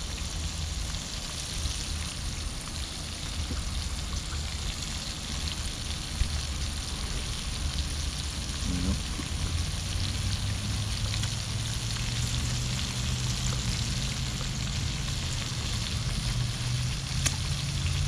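Catfish pieces frying in oil in a pan on a portable gas camp stove: a steady sizzle, with a low hum underneath that grows a little stronger about ten seconds in.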